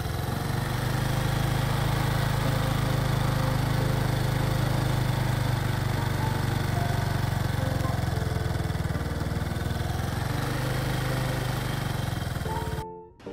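Motor scooter engine running steadily with a low hum and a hiss of road and wind noise, cutting off suddenly near the end.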